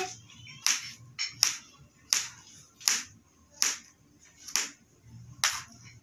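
Kitchen knife chopping peeled muskmelon into cubes on a cutting board: seven separate sharp strokes, about one every three-quarters of a second.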